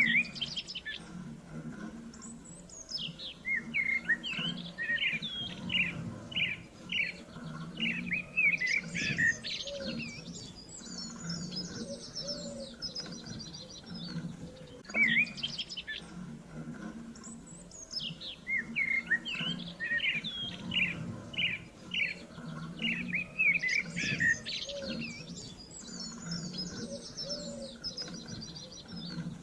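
Small songbirds chirping and trilling in a busy chorus, over a low steady hum. The same stretch of song repeats about every fifteen seconds, as a looped recording.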